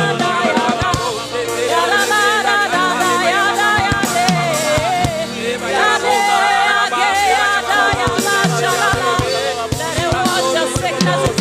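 Gospel worship music: voices singing a wavering melody over a band with a steady drum beat.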